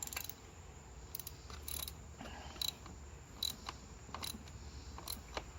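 Ratchet wrench clicking in short strokes, roughly one click a second, while tightening a spark plug down through a socket extension.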